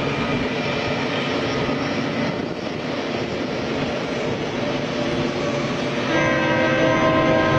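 A train running with a steady noise. About six seconds in, a train horn starts sounding, several tones at once.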